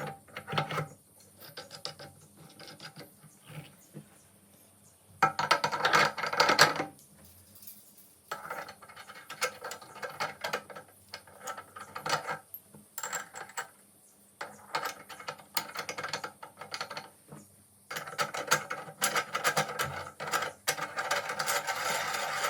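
Stainless steel meat grinder parts being taken apart and cleaned by hand: spells of metal scraping, rubbing and clicking a few seconds long, with short pauses between.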